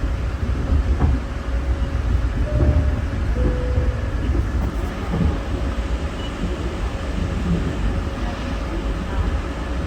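Steady low rumble of a moving GO Transit commuter train heard from inside a passenger coach, with a faint steady tone over it and a single light click about a second in.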